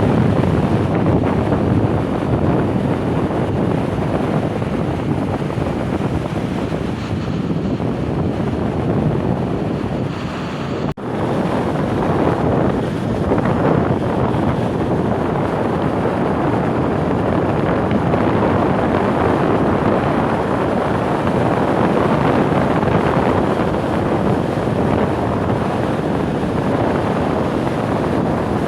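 Baltic Sea surf washing onto the shore under strong wind buffeting the microphone, a steady rush of noise. It breaks off for an instant about eleven seconds in.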